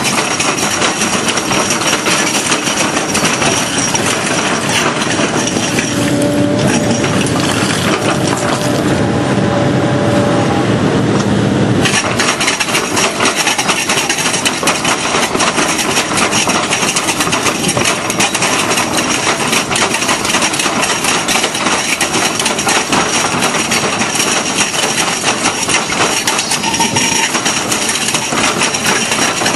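Excavator-mounted hydraulic drum cutter grinding into cracked rock: a dense, continuous clatter of its picks chipping stone over the excavator's running engine. From about six to twelve seconds in, the sound turns duller and lower before the sharper clatter returns.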